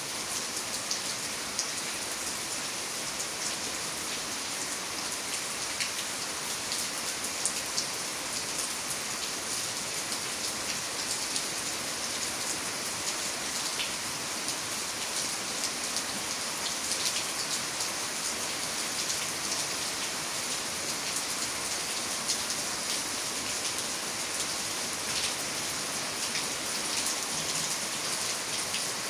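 Steady rain falling on a bare dirt yard: an even hiss scattered with many short, close drop hits.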